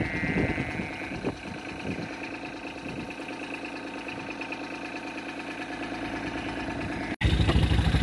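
John Deere Gator utility vehicle's engine idling steadily, with a few knocks of rope and handling in the first couple of seconds. Just after a cut near the end the engine is louder.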